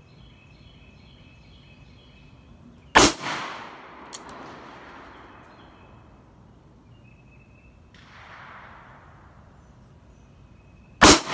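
Two shots from a 1964 Colt Python .357 Magnum revolver firing +P hunting loads, about eight seconds apart, the second near the end, each followed by a short echoing tail. Birds chirp faintly before the first shot.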